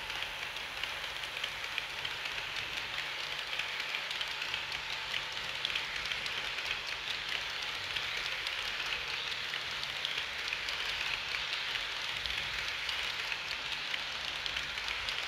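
HO-scale model train running past on the layout's track: a steady hiss with fine rapid clicking of small metal wheels rolling over the rails and joints as the coaches go by.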